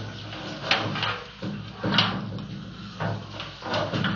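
Sewer inspection camera's push cable being pulled back through the line, making a series of uneven scraping, sliding strokes over a steady low hum.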